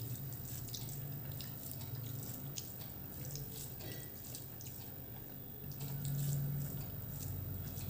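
Close-up eating sounds: fingers working rice with a wet poppy-seed paste and chewing, giving many small, wet, sticky clicks over a steady low hum.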